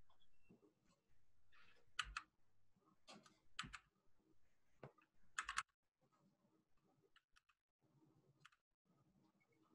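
A handful of faint computer clicks over near silence, spread through the first six seconds, then quiet.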